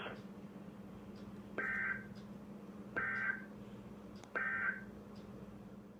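Emergency Alert System end-of-message data bursts on NOAA Weather Radio: three short digital bursts about a second and a half apart, signalling the end of the broadcast warning. A faint steady hum runs underneath.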